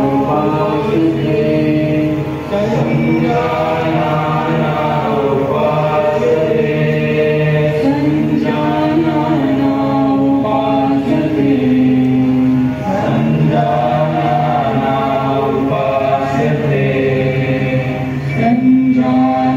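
Opening yoga prayer chanted in a slow sung melody, the voices holding long notes that step up and down between phrases.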